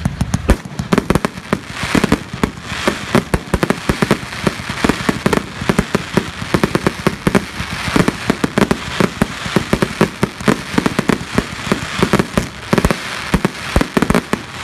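Professional fireworks display: a dense, unbroken run of sharp bangs and crackling pops, several a second, from aerial fireworks going off in quick succession.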